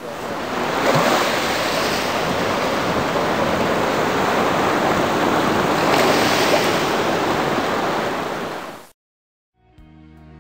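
Ocean surf: a loud, steady rush of breaking waves that swells twice and cuts off suddenly near the end. Soft music starts just before the end.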